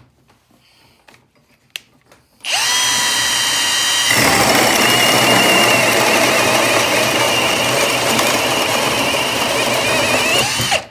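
Milwaukee M18 FUEL Hole Hawg right-angle drill with a carbide-toothed hole saw. About two and a half seconds in it starts with a whine, then from about four seconds in it cuts into a wooden board under load with a loud, dense grinding for about six seconds. Near the end the motor speeds up as the saw breaks through, and it stops.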